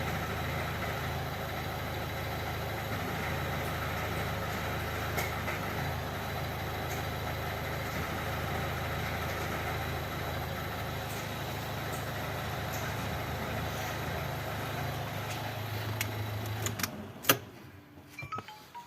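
Car engine idling steadily, with a few faint clicks over it. Near the end the engine stops with a sharp clack, followed by a few small clicks.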